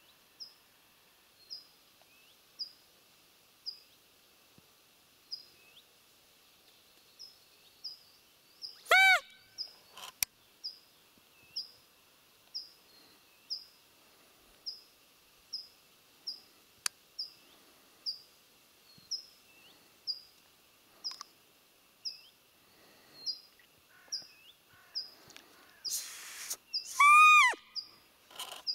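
A small bird chirping a short high note about once a second, and twice a loud, clear squeal that falls in pitch: the piping fiep of a roe deer call used to lure a buck. A short rustle comes just before the second squeal.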